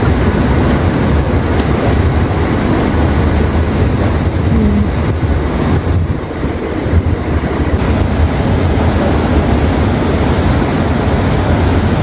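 Wind buffeting a phone's microphone: a loud, uneven rushing noise, heaviest in the low end.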